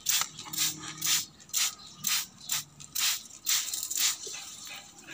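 Hand trigger spray bottle pumped over and over, each squeeze giving a short hiss of spray onto mango leaves, about two to three squeezes a second.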